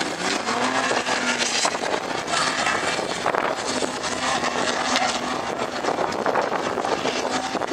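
4x4 engine revving hard while driving on sand dunes, its pitch climbing in the first second, then holding high under a steady rush of noise.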